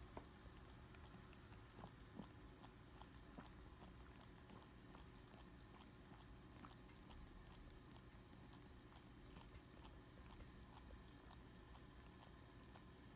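Near silence with faint, irregular little clicks and smacks of newborn toy poodle puppies suckling, over a low steady room hum.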